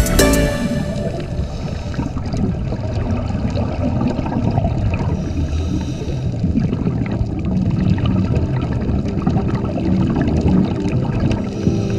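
Underwater sound picked up by a diving camera: a muffled, steady watery rush with irregular gurgling.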